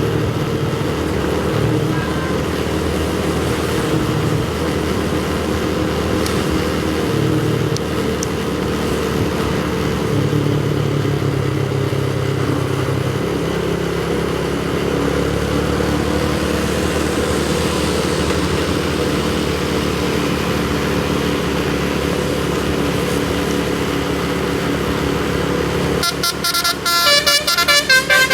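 Steady traffic noise of vehicle engines running. Near the end a tour bus's telolet 'basuri' musical air horn starts playing a fast, chopped run of high melodic notes, louder than the traffic.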